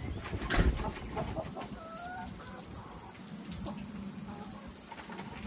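A hen giving a few short, soft clucks and a longer, slightly rising call about two seconds in. A single knock about half a second in is the loudest sound.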